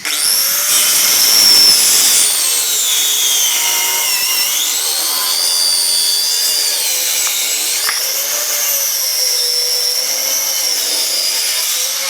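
A power tool's electric motor running with a loud, high-pitched whine while working wood. The pitch dips about four seconds in and climbs back, with smaller dips later, as the motor slows under load and recovers.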